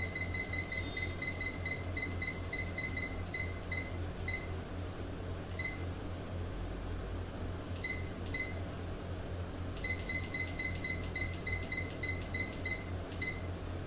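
Digital hygrometer-thermometer clock beeping at each button press while its time and date are being set: short, identical high beeps in quick runs of about three a second, with a pause of a few seconds in the middle. A steady low hum runs underneath.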